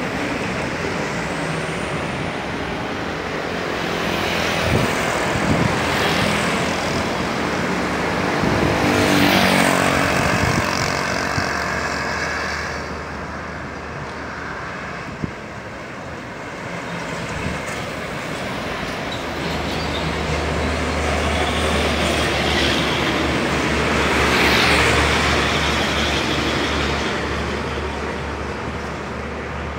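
Roadside traffic passing on a highway: motor vehicles, motorcycles among them, going by and rising and fading, loudest about nine seconds in and again near the end. Over the second half there is a low steady engine drone.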